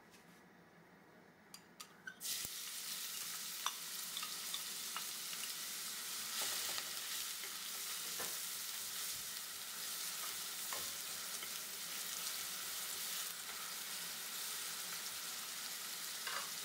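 Chopped onion frying in hot oil in a stainless steel pot. A steady sizzle starts suddenly about two seconds in, while a spatula stirs the onion and scrapes the pot.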